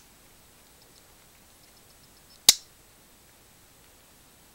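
A blade of a 1940s Victorinox Spartan Swiss Army knife snapping against its backspring: one sharp snap about two and a half seconds in, with faint light clicks just before it.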